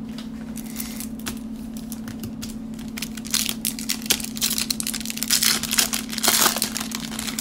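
Plastic and foil trading-card pack wrappers crinkling and crackling as they are handled and torn open, in irregular bursts that get busier past the middle. A steady low hum runs underneath.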